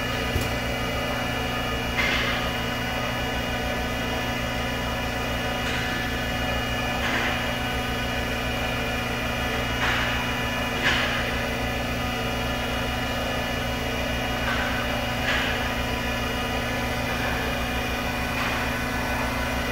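Haas EC-630 horizontal machining center running with its fourth-axis rotary table turning the pallet: a steady machine hum with several steady tones, broken by short hisses every few seconds.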